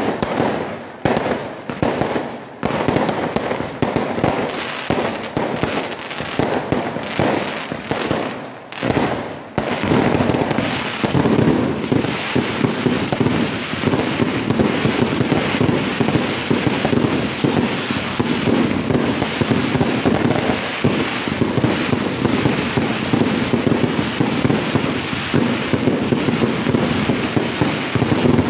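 Aerial fireworks bursting: separate bangs a fraction of a second apart for about the first ten seconds, then a dense, unbroken barrage of explosions.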